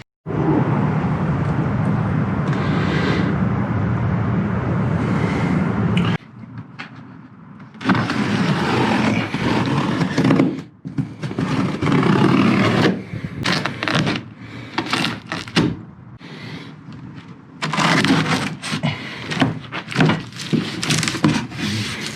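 Scraping and rustling of a large cardboard box being dragged and opened, followed later by a series of short knocks, cracks and thumps as the packing is pulled apart.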